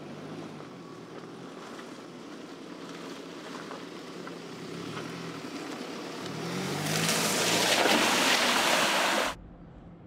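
Mercedes-Benz GLC 300 4Matic's turbocharged four-cylinder engine running at low revs on a dirt trail, its pitch rising and falling. A loud rushing noise builds as the SUV comes close and passes, then cuts off suddenly near the end.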